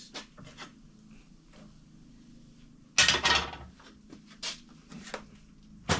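Metal parts and tools handled and set down on a workbench: a loud clatter about three seconds in, then a few lighter clinks.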